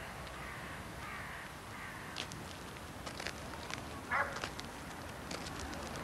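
Outdoor park ambience with faint bird chirps, and one short, harsh bird call about four seconds in.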